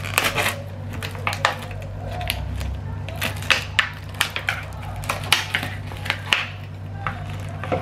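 Handling noise: a plastic bag crinkling and chopsticks clicking as ground fish paste is scraped out of the bag into a plastic mixing bowl, in short irregular bursts.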